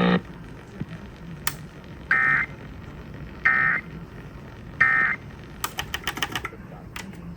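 Three short bursts of Emergency Alert System SAME digital data tones, each about a third of a second long and about 1.3 s apart, the end-of-message code that closes a weather warning broadcast, over a faint hum. A quick run of clicks follows.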